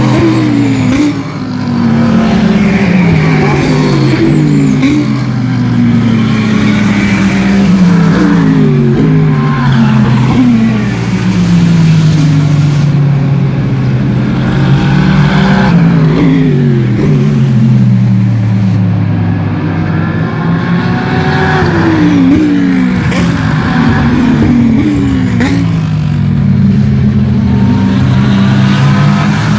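GT3 race cars passing one after another, several engines overlapping, their pitch repeatedly rising and falling through gear changes and as they go by.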